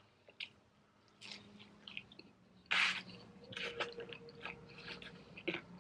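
Close-miked chewing of a mouthful of pepperoni pizza: scattered wet lip smacks and mouth clicks, with one louder smacking burst about three seconds in.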